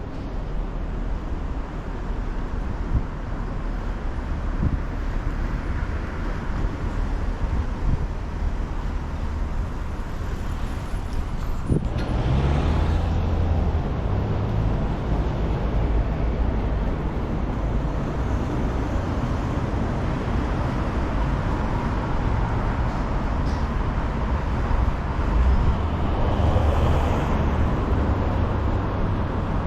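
City street traffic: road vehicles passing in a steady low rumble that gets louder about twelve seconds in and swells again near the end, with one sharp click at the point it gets louder.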